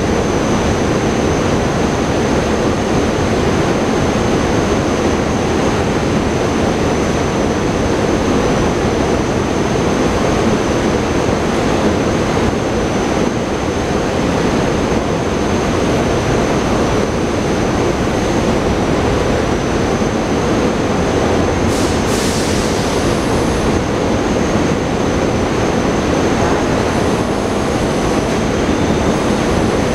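SEPTA Regional Rail electric train at the platform, its equipment giving a steady rumble with a thin, steady high whine on top. A brief hiss sounds about three-quarters of the way through.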